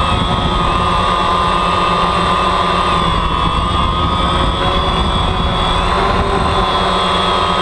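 DJI Phantom quadcopter's four electric motors and propellers in flight, heard from the GoPro mounted on the drone: a steady multi-tone whine that wavers slightly in pitch, over a low rumble.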